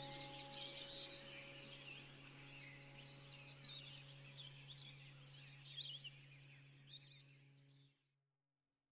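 Many small birds chirping in a forest over a low, steady hum, the whole track fading down and stopping about eight seconds in.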